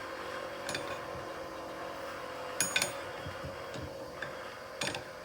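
Metal tools and parts clinking a few times during hands-on work on a hydraulic brake cylinder, the loudest a quick double clink about midway, over a steady background hum.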